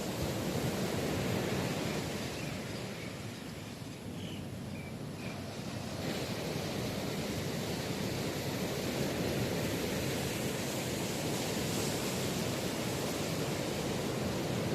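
Heavy surf breaking on a beach in strong wind, a steady rushing wash of waves that eases slightly a few seconds in, then swells again.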